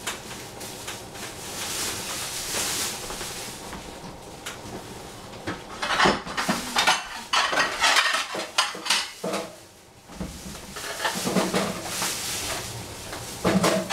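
Pots, dishes and metal cutlery clinking and knocking as they are handled, in two spells of clatter: one starting about six seconds in, the other a little before the end.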